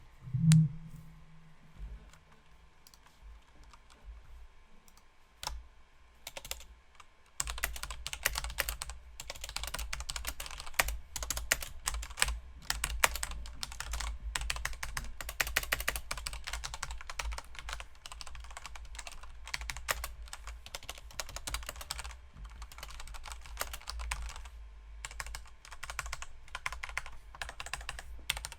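Typing on a Corsair K68 mechanical keyboard with its plastic top-frame cover removed: a single thump about half a second in, a few scattered key clicks, then fast continuous typing from about seven seconds in.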